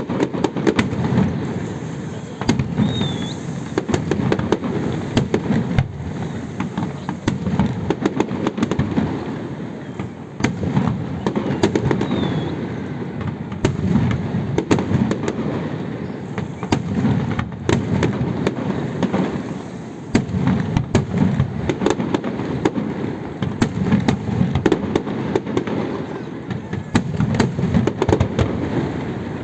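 Fireworks display: a rapid, unbroken run of bangs and crackling over deep booms, swelling and easing in waves every few seconds.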